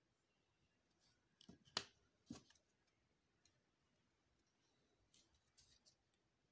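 Near silence broken by a few sharp clicks and taps about a second and a half in, the loudest near two seconds, then faint ticks later on: small nail-kit items such as a brush and a nail file being handled and set down on a table.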